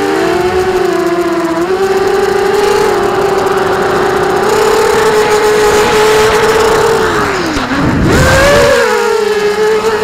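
FPV quadcopter's brushless motors and propellers whining steadily, heard through the on-board camera. About three-quarters of the way through, the pitch drops sharply as the throttle is cut, then climbs back as power comes in again.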